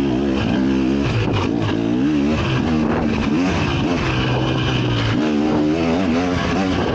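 KTM 300 SX two-stroke motocross engine being ridden hard, its pitch rising and falling again and again as the throttle is opened and rolled off through the track's turns.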